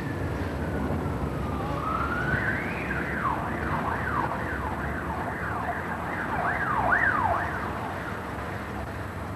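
A siren over a low city rumble: a slow wail rising and falling, then from about three seconds in a fast yelp sweeping down and up about twice a second, stopping about seven and a half seconds in.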